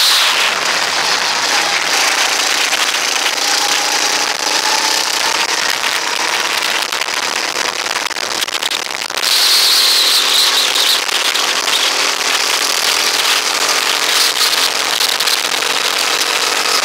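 Rental go-kart engine running at racing speed, heard from the driver's seat, with rough, crackling wind noise over the microphone. The engine note sags just before nine seconds in, then comes back loud and high as the kart accelerates again.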